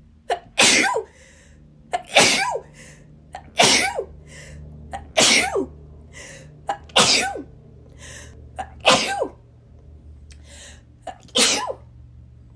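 A person sneezing seven times in a row, about one sneeze every one and a half to two seconds, with the gap longer before the last. Each sneeze has a short sharp catch just before it and a voiced part that falls in pitch.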